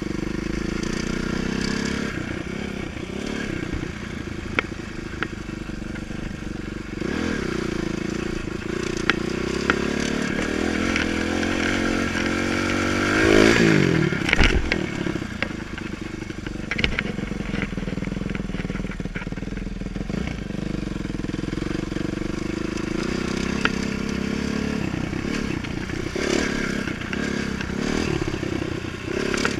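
Dirt bike engine heard from on the bike, its pitch rising and falling as the throttle opens and closes while riding, with a hard rev about halfway through. Scattered brief knocks and rattles from the bike over the rough ground.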